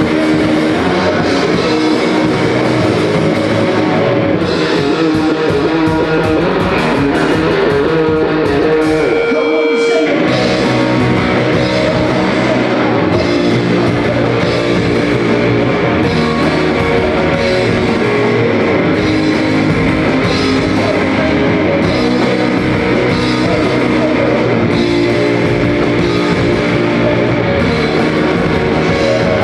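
Rock band playing through a song on amplified electric guitars and a drum kit, with a brief break in the bass and drums just before ten seconds in.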